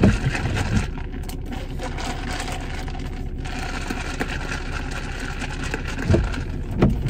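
An iced latte in a plastic cup being stirred with its straw to mix in the whipped cream topping, with a few dull knocks as the cup is handled, near the start and again near the end. A steady rushing hiss runs under it throughout.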